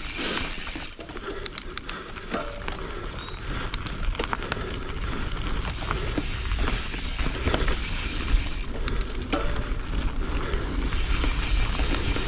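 Canyon Strive enduro mountain bike rolling fast down a dry dirt trail: tyre noise over packed earth and dry leaves, with clicks and rattles from the bike and a low wind rumble on the camera microphone that builds as speed rises. A single sharp knock comes about eight seconds in.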